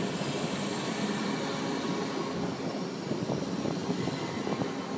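Union Pacific passenger cars rolling past on the track: a steady rumble of steel wheels on rail, with scattered clacks from about three seconds in as the last car goes by.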